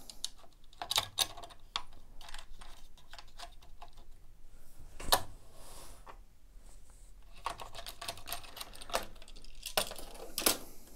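Plastic clicks and knocks from a cordless chainsaw's plastic side cover being handled and fitted against its housing. There is a sharper knock about five seconds in and a run of clicks near the end.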